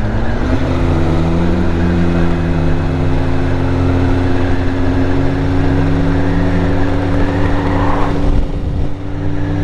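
BMW motorcycle engine running steadily as the bike rides on, with a brief drop in level about nine seconds in.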